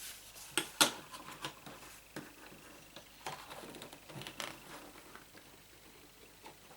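Paper and cardboard of a stand-up desk calendar being handled: irregular light clicks, taps and short rustles, the sharpest about a second in.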